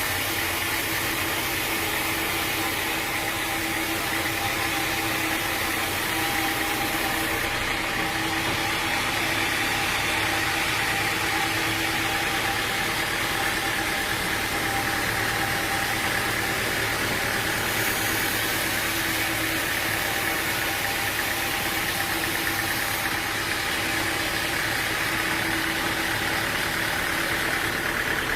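Sawmill machinery running steadily, an engine-like hum with a constant pitch under a noisy hiss.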